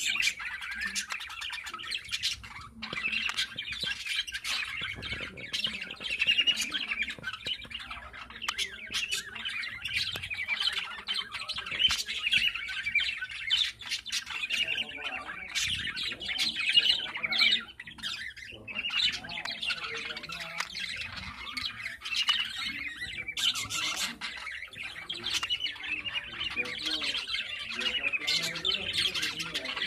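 Budgerigars chattering and warbling without a break, dotted with many short, sharp chirps and squawks.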